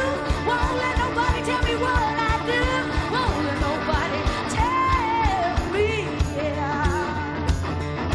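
Live folk-rock song: a woman singing over two strummed acoustic guitars, with a steady beat underneath.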